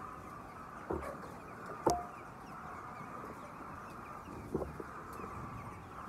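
A large flock of white chickens clucking in a steady murmur, with a few louder single calls; the sharpest comes about two seconds in.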